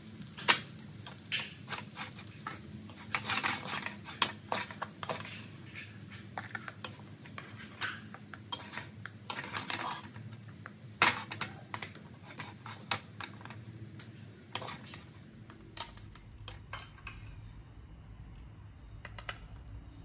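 Wooden spatula scraping and knocking against a metal wok as fried rice is stirred and scooped: a run of irregular clicks and scrapes. The clicks become sparser in the last few seconds.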